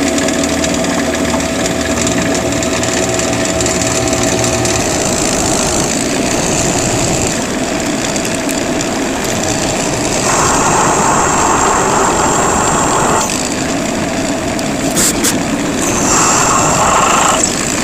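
Electric drill running steadily while boring a pilot hole through square bar stock. The sound grows louder and rougher twice in the second half as the bit cuts.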